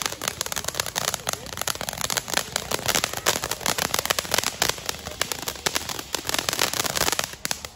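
Ground fountain firework spraying sparks with a dense, fast, irregular crackle of tiny pops that stops abruptly near the end.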